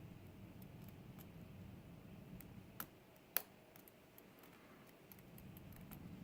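Faint, scattered metallic clicks and ticks of a lock pick working the pins inside a GEGE euro cylinder, with two sharper clicks about three seconds in.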